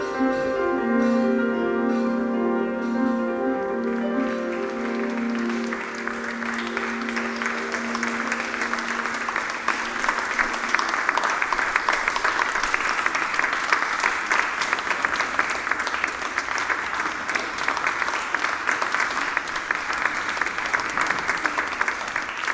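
Grand piano's last notes ringing out and slowly dying away. An audience starts to applaud about five seconds in and keeps clapping steadily as the piano fades.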